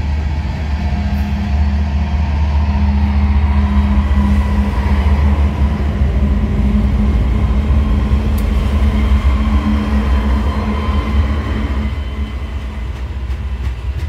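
Mid-train pair of BNSF GE C44-9W diesel-electric locomotives passing close by in a loaded grain train, their engines giving a heavy low drone that is loudest about halfway through. The loaded covered hopper cars then roll on by, with wheel clicks near the end.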